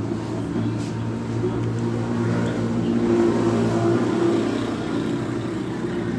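A motor vehicle engine running, a steady low hum that grows louder toward the middle and eases off a little near the end.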